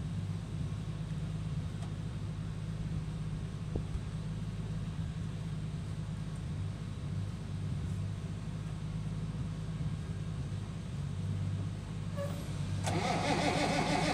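Allis-Chalmers diesel tractor engine cranking steadily on its starter in freezing weather without its block heater plugged in, then catching near the end and running noticeably louder.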